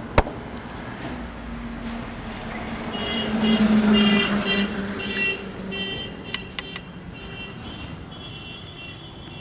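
Street traffic: a motor vehicle passes, its hum loudest about four seconds in, with high repeating electronic beeps sounding from about three seconds on. A single hand slap from the massage is heard right at the start.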